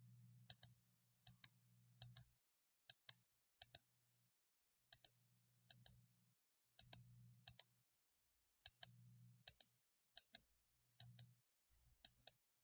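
Computer mouse button clicking faintly and irregularly, about once a second, each click a quick double snap of press and release. The clicks place the points of a point-to-point freehand selection being drawn.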